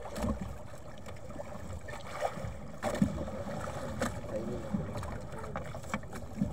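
Wind and sea water around a small outrigger fishing boat while a gill net is hauled in over the side by hand, with a few short knocks about halfway through and near the end.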